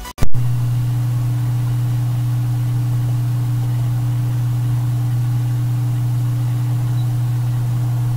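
A brief click, then a steady, unchanging low electrical hum with a faint hiss behind it.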